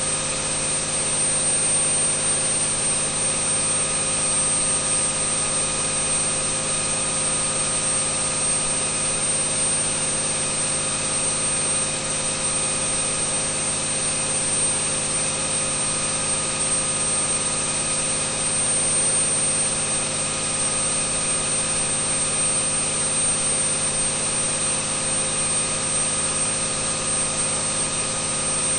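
John Deere 8.1L inline-six marine turbodiesel running steadily under dyno load at about 2,100 rpm, making about 215 hp. It holds one steady pitch throughout, with a steady high-pitched whine over the engine note.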